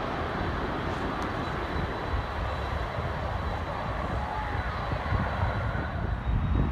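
Jet airliner engine noise from a four-engine Airbus A380 landing on the runway: a steady, broad rumble that gets a little louder near the end.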